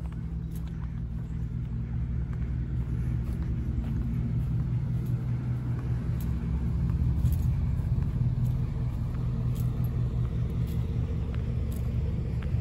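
A small petrol engine running steadily at low speed, a deep even hum that grows a little louder over the first several seconds.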